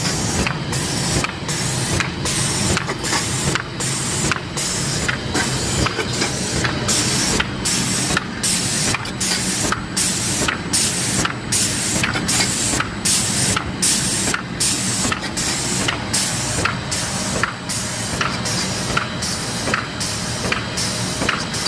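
Automatic sheet-feeding board laminating machine running: a steady hiss that pulses about twice a second, with light mechanical clicks as sheets are fed along the belts and rollers and stacked.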